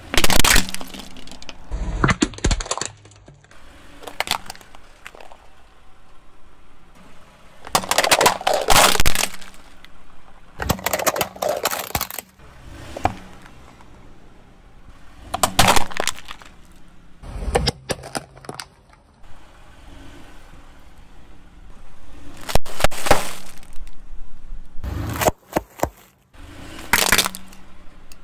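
Hollow plastic toys cracking and crunching under a car tyre as it rolls over them one after another: about ten sharp breaks a few seconds apart, some drawn out into a second or so of crunching.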